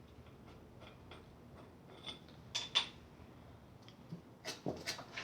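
Hand ratchet clicking in a quick, even run while a bolt is turned out, then a few sharper metal clinks of tools and parts about halfway through and again near the end.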